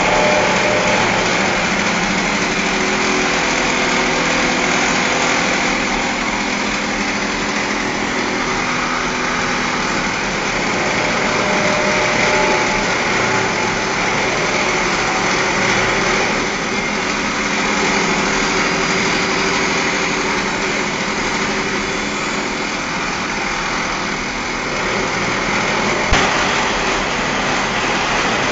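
Industrial grinding wheel grinding the surface of a round steel billet: a steady grinding hiss over the machine's running drive. There is a brief knock near the end.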